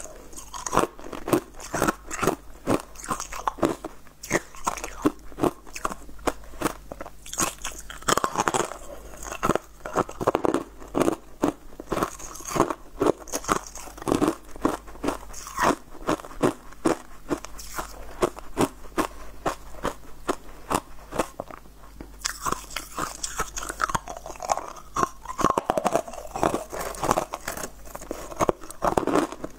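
Frozen corn on the cob being bitten and chewed: a steady run of sharp, crisp crunches, several close together.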